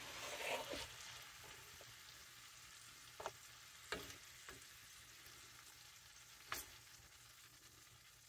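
Beef and cabbage stir fry faintly sizzling in a cast iron skillet while a wooden spoon scoops it into a bowl, with a scraping shuffle at first and about four short knocks of the spoon.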